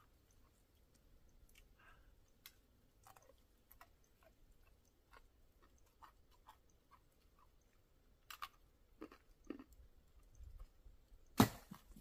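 A hiker's footsteps on snowy mountain ground: faint, irregular crunches and clicks, with one sharper knock near the end.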